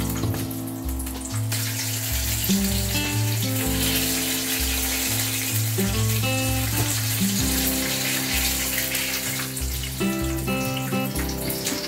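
Background music with a stepping bass line, over the steady hiss of hot oil sizzling in a deep-frying pan.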